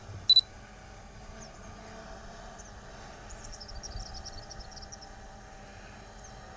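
A short, high electronic double beep about half a second in, then faint outdoor background with scattered high-pitched chirping.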